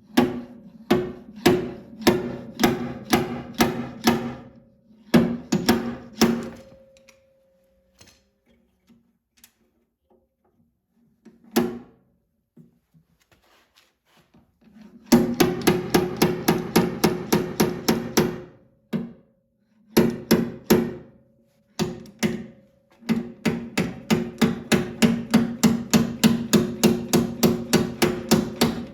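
Hammer striking a dented sheet-metal body panel of a 1984 Saab 900 in runs of quick blows, the metal ringing after each one, with a long pause in the middle; the dent is being worked back out. The later runs go at several blows a second.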